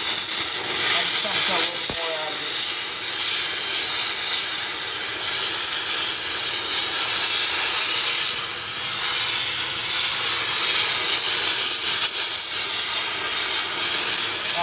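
Oxy-fuel cutting torch hissing steadily as it burns through a rusted, seized lug stud on a steel wheel.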